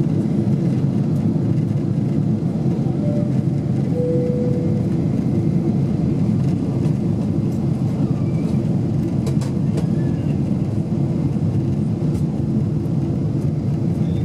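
Boeing 747-8 cabin noise in descent: the steady drone of the GEnx engines and the airflow over the fuselage, heard inside the cabin from a window seat over the wing. Two short tones sound about three and four seconds in, the second lower.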